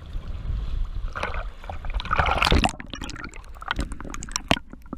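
Water sloshing and splashing around a camera at the surface, then a loud splash about two seconds in as it goes under. After that the sound is muffled underwater, with many small clicks and crackles of moving water and bubbles.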